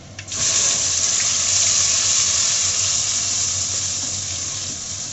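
Wet ground-onion paste poured into hot oil with tempered spices, sizzling hard: a sudden loud hiss about a third of a second in that keeps on and slowly fades as the paste fries.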